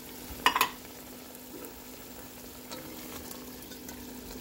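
Tomato-sauce vegetable stew sizzling in a pot as it is stirred, with a quick cluster of sharp knocks of the spoon against the pot about half a second in.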